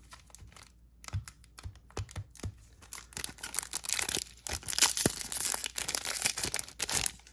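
Foil wrapper of a Magic: The Gathering draft booster pack being handled and torn open. Scattered small crinkles and taps come first, then from about three seconds in a dense crinkling and ripping of the foil, which stops shortly before the end.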